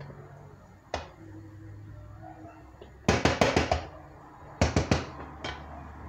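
Quick clusters of sharp metallic clinks and knocks from a metal couscous pot being handled: one knock about a second in, then two rattling bursts about three and four and a half seconds in.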